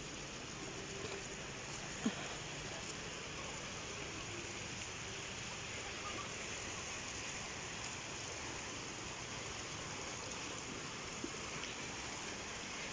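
Small waves washing along the shore in a steady, even hiss, with one faint knock about two seconds in.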